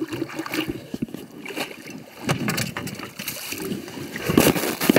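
Irregular knocks, rubbing and rustling against the side of an inflatable rubber boat, louder near the end.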